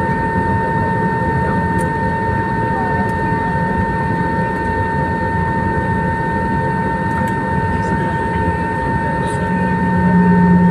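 Airliner cabin noise during taxi: a steady jet-engine rumble with several constant whining tones, heard from inside the cabin. A lower hum grows stronger near the end.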